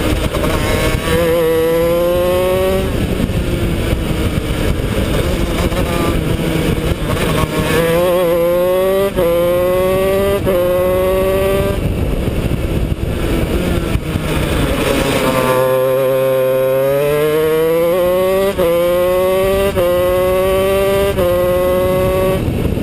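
Honda CR125 two-stroke single-cylinder shifter kart engine at full throttle, its pitch climbing and then dropping with each quick upshift. About two-thirds of the way through the revs fall away for a corner under downshifts, then climb again through the gears with three more upshifts.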